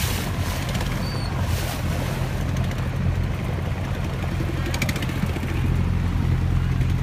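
A boat's engine running steadily with a low drone, heard from on board as the boat cruises along.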